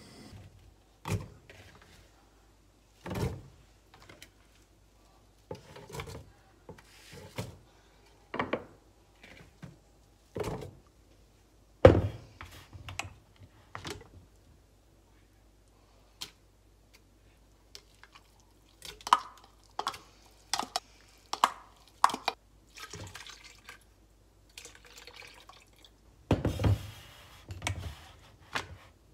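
A string of separate kitchen handling sounds: knocks, clinks and liquid sloshing from a stainless stockpot, a wooden spatula and a plastic blender jug and its lid being handled.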